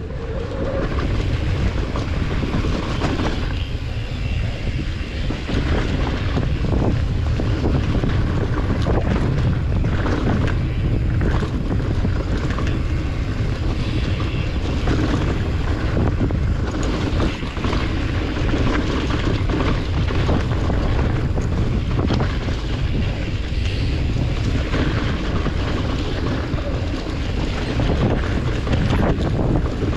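Wind rushing over the microphone of a camera carried on a mountain-bike ride: a steady rush and low rumble, with scattered short clicks and rattles.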